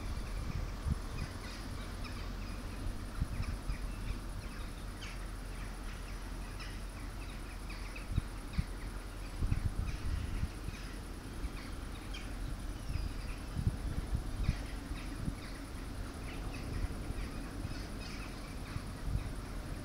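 Outdoor ambience of birds giving short, scattered calls, over a low rumble with irregular thumps of wind buffeting the microphone.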